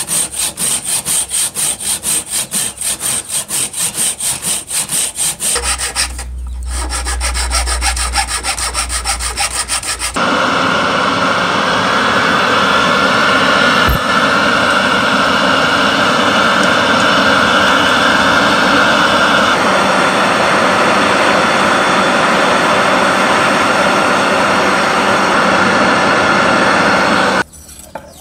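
Hand saw cutting into a wooden knife handle, quick even strokes about three a second, the stroke pattern changing about six seconds in and the sawing ending about ten seconds in. A loud, steady rushing hiss follows and cuts off just before the end.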